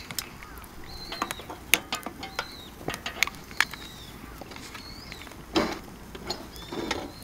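Wood fire crackling with sharp pops, while a bird gives short high chirps several times. Near the end come two brief rustling scrapes as the oil lantern is handled.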